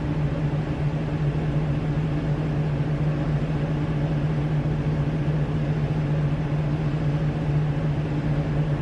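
Truck engine idling steadily, heard close to its exhaust pipe: an even, low hum.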